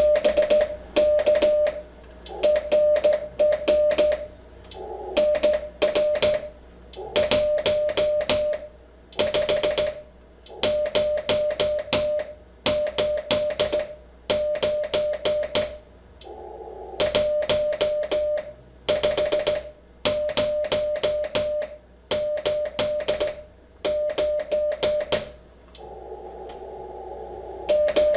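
Morse code sent by hand on a straight key through an Icom IC-7300: a steady mid-pitched sidetone beeps in uneven dots and dashes, with a sharp click at each stroke. It spells out 'BK RR NR 15089 15089', the operator's straight-key member number, and then 'OK TNX BILL 73'. Between sends, about 17 seconds in and again near the end, comes the hiss of the receiver.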